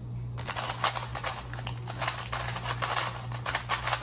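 A plastic 3x3 speedcube being turned very fast in a speedsolve. Its layer turns make a rapid, uneven clatter of clicks that starts about half a second in.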